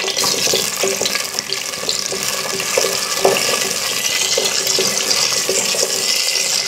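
Wet, freshly washed Indian gooseberries sizzling in hot oil in a stainless-steel pressure cooker as they are stirred, a steady hiss with small knocks of the silicone spatula against the pot now and then.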